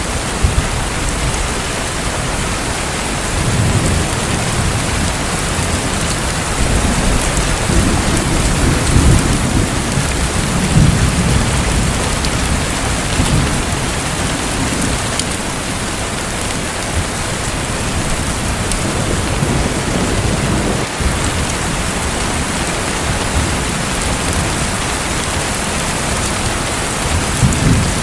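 Steady hiss of falling water, like rain, with low rumbles swelling between about three and eleven seconds in and again near the end.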